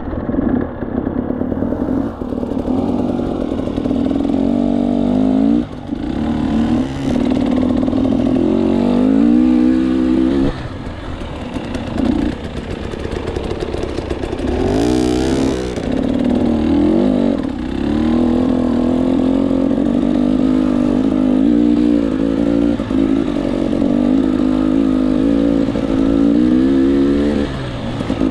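KTM 300 two-stroke enduro motorcycle engine being ridden on a trail, revving up and easing off again and again as the throttle is worked, with a brief rush of harsh noise about halfway through.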